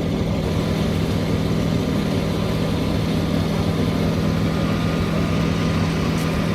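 Heavy engine running steadily at a constant speed, an even hum with no change in pitch.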